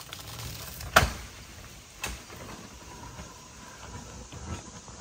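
A travel trailer being towed up a steep driveway, a low vehicle rumble throughout, with one sharp, loud clunk about a second in and a lighter knock a second later.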